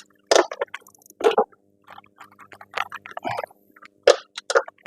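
A few short clanks and scrapes, roughly six in all, as tools and metal suspension parts are worked into place during a front strut install, with a faint steady hum in the background.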